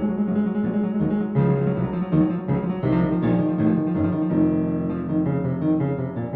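Piano music: held chords and notes that change every second or so.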